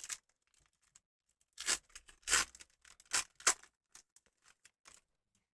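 Foil Pokémon booster pack wrapper being torn open in a series of short rips, the loudest few coming between about one and a half and three and a half seconds in, followed by faint crinkles of the foil.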